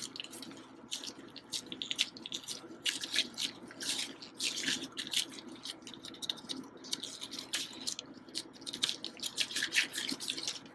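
Hands in thin disposable plastic food gloves working a soft ball of coxinha dough, pressing in the filling and closing it: the gloves crinkle and the dough squishes in a run of soft, irregular crackles.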